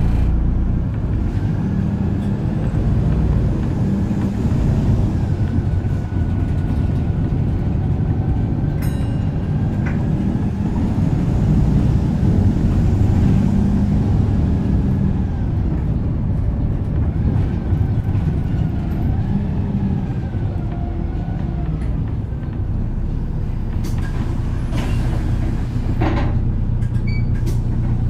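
Volvo B7RLE bus heard from inside the saloon: its six-cylinder diesel engine running under way, the engine note rising and falling, with a whine above it that glides up and down. A few knocks and a short hiss come near the end. The uploader calls this bus fundamentally broken and noticeably weaker than others of its type.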